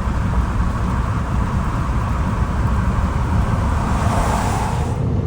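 Steady road noise inside a moving vehicle's cab: a low rumble with an even hiss, and a brighter hiss that swells and then drops away about five seconds in.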